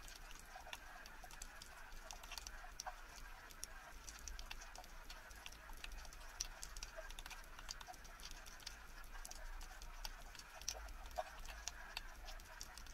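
Faint underwater ambience picked up by an action camera: a steady crackle of small, irregular clicks and snaps over a low hum.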